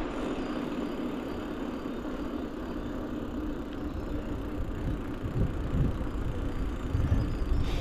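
Mountain bike riding on Maxxis Aspen and Forekaster cross-country tyres: the tyres rolling with a steady low hum under a rushing noise, and a low rumble that comes in gusts over the last few seconds.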